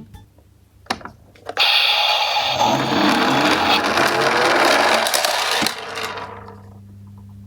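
Toy garbage truck minicar rolling down a slope: a click, then a rattling rolling noise from its wheels that lasts about four seconds and fades out.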